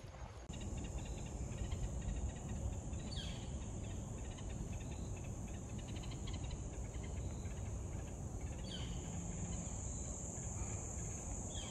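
Steady high-pitched drone of an insect chorus in the trees, with a few short falling chirps about three seconds in, around nine seconds and near the end, over a low rumble.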